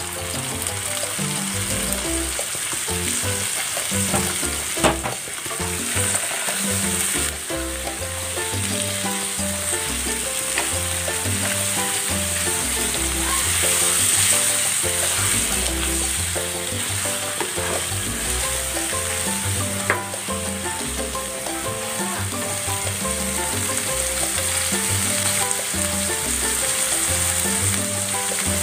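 Pork slab searing in hot oil with garlic and onion in a nonstick frying pan: a steady sizzle, with two sharp clicks, one about five seconds in and one about twenty seconds in.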